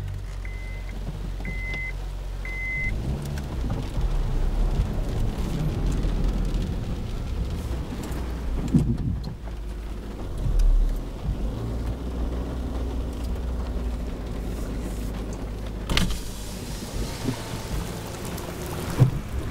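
Small car's engine running as it is driven slowly through floodwater in heavy rain, with rain on the body. A dashboard warning chime beeps about five times in the first three seconds.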